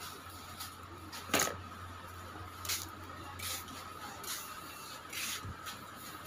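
Shop room tone: a steady low hum and a faint steady high tone, broken by about five short swishing or rustling noises spread through.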